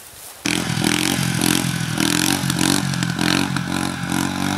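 Three-wheeled ATV's engine running and revving as the machine rides through grass. It starts abruptly about half a second in, with the pitch rising and falling.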